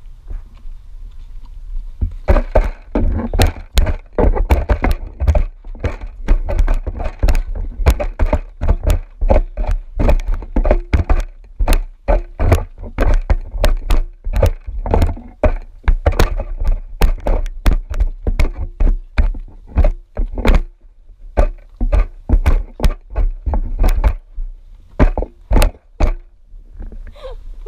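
Emus pecking feed pellets from a bowl, their beaks striking hard into the pellets and the bowl in rapid, irregular knocks, several a second. The knocks start about two seconds in and thin out near the end, over a steady low rumble.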